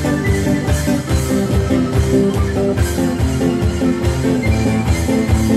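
Acoustic street band playing: a strummed acoustic guitar over a cajon with a cymbal keeping a steady beat of about two low hits a second, with a held melody line on top.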